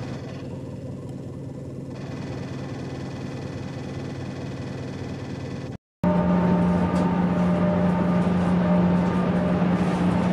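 Inside a moving Tokyo BRT bus: a steady drive hum with road noise and level whining tones. A short break about six seconds in is followed by a louder stretch with a strong steady low hum.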